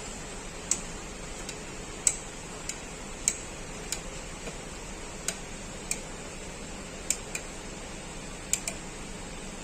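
Sharp, irregular clicks, about one a second, from a screwdriver driving in the screws of a CPU cooling fan, over a steady hiss.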